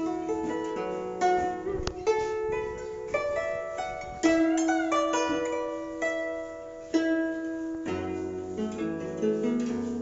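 Guzheng played with fingerpicks: a run of plucked notes ringing over one another, with strong accented plucks at about one, four and seven seconds in, and a note bent in pitch a little after the middle.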